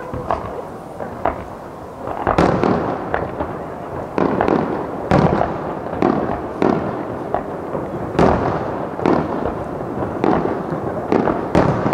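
Aerial firework shells bursting in a quick run of loud bangs, with crackle and rumble between them. The first heavy bang comes about two seconds in.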